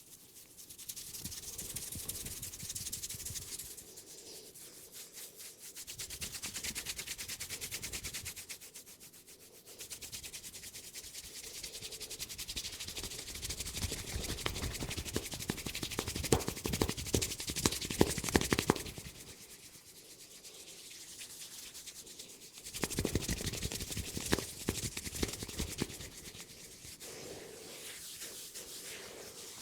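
Hands rubbing and scratching briskly through hair and over the scalp in a head massage, in bouts of a few seconds with short pauses between, loudest around the middle.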